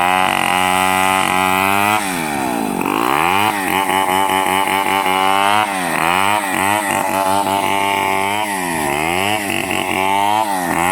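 Chainsaw running hard while cutting wood, its engine pitch repeatedly dipping under load and climbing back up several times.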